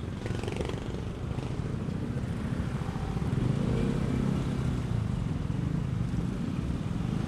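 Motorcycle engine running at low speed in stop-and-go traffic, with a steady low hum that gets a little louder about halfway through.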